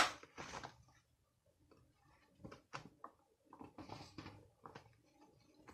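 A sharp click, then faint, scattered scuffs and light taps of hands and utensils working at a bowl of flour.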